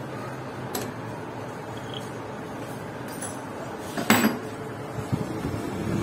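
Metal parts clinking at a lathe as a machined clutch part is taken out of the chuck: a light click about a second in, then one loud metallic clink about four seconds in, over a steady low hum.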